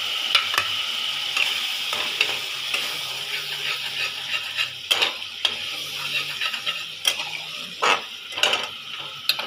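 Thick onion-tomato masala sizzling in oil in a metal pan as it is stirred and cooked down with a metal spatula, with a steady sizzle and scattered sharp clicks and scrapes of the spatula against the pan.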